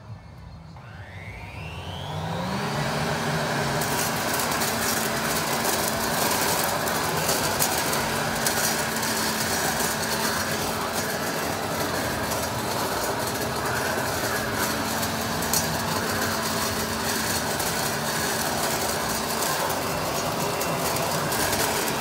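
Toro Ultra electric leaf blower vac spinning up with a rising whine during the first couple of seconds, then running steadily in vacuum mode. Crackles come from leaves being sucked through it.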